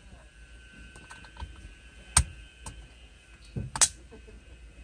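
Plastic wiring connectors on a Hyundai Elantra's steering-column switch and clock-spring harness, clicking and rattling as they are handled and pushed home. Two sharp clicks stand out, one about two seconds in and a louder one near four seconds, with lighter ticks between.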